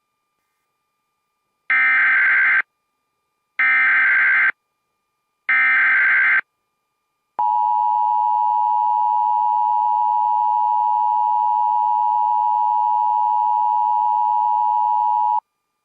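Emergency Alert System tones. Three short SAME header data bursts sound about two seconds apart, followed by the steady two-tone EAS attention signal. The attention signal is held for about eight seconds and then cuts off suddenly.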